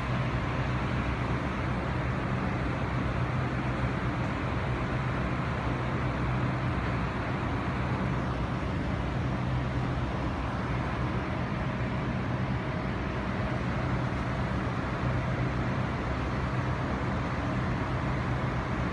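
Constant urban background noise with a steady low mechanical hum, like traffic and building machinery.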